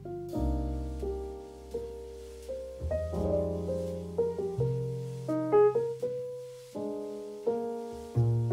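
Background piano music: soft chords and melody notes, each struck and left to fade, a new note or chord coming about every half second to a second.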